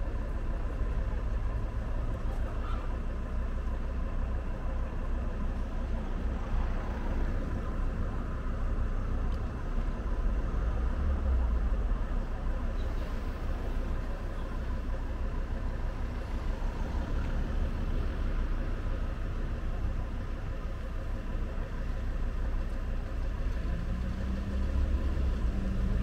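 Outdoor street ambience: a steady low rumble of road traffic, with a slightly stronger engine hum near the end.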